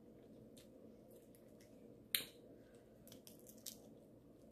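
Snow crab shell being picked apart by hand: a few faint sharp cracks and clicks over a low room hum, the sharpest about two seconds in.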